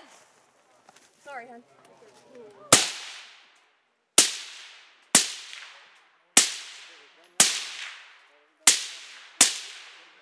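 Seven suppressed shots from an AR-15 rifle fitted with a Dead Air Armament Sandman S silencer, fired about a second apart at an uneven pace. Each shot is a sharp crack with an echo that dies away over about a second.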